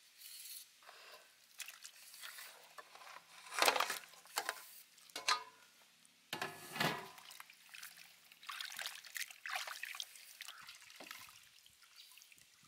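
Raw beef ribs being rinsed by hand in a stainless steel bowl of water: irregular splashes, sloshing and drips, loudest in the middle.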